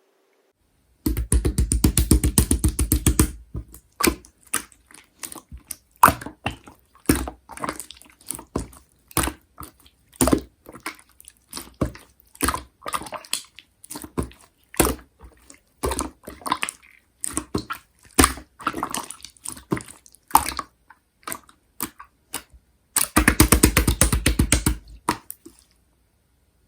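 Clear slime being squeezed and poked by hand, giving rapid runs of small popping clicks about a second in and again near the end, with scattered wet pops and squelches in between.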